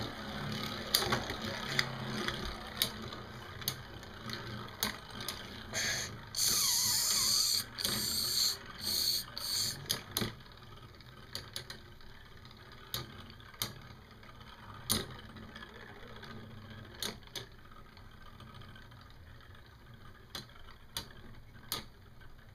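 Earth Wolf and L-Drago Beyblade spinning tops battling in a plastic stadium: repeated sharp clacks as they strike each other and the stadium. There is a spell of harsh, high grinding from about six to ten seconds in, then fewer, scattered clicks.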